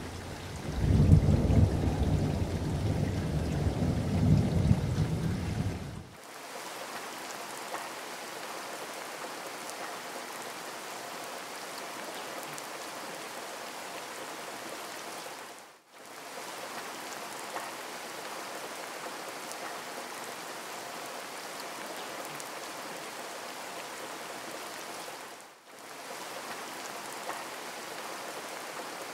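Heavy rain, an even hiss, with a loud low rumble of thunder for about the first six seconds that cuts off sharply. The rain drops out briefly twice, about halfway through and near the end.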